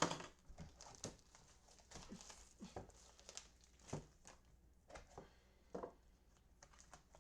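Crinkling and tearing of plastic wrap with scattered light clicks and taps as a box of baseball cards is opened by hand.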